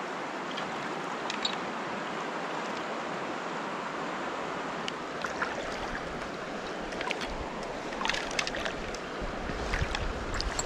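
River water flowing steadily, with a few light clicks in the second half.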